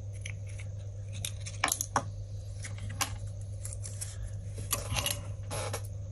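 Small tools handled on a wooden workbench: a series of irregular light clicks and taps as a marker pen is set down and a solder spool and soldering iron are picked up, over a steady low hum.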